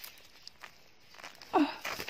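A mature garlic plant being pulled up out of garden soil by hand: a rustle and tearing of roots and earth coming loose about one and a half seconds in, with a short grunt of effort.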